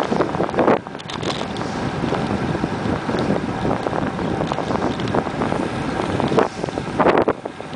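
Wind buffeting the microphone of a camera on a moving bicycle, a steady rushing noise with stronger gusts near the start and about seven seconds in.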